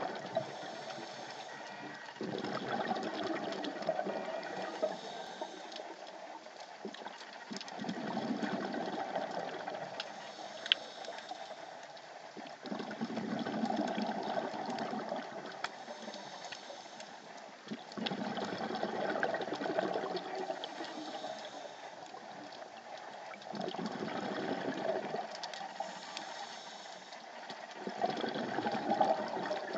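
Scuba diver breathing through a regulator underwater: a rush of exhaled bubbles comes about every five seconds, six times in all, with quieter inhalations between. Scattered sharp clicks run through it.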